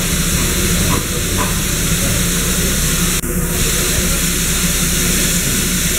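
Darjeeling Himalayan Railway B-class steam locomotive standing in steam, its steam hissing steadily.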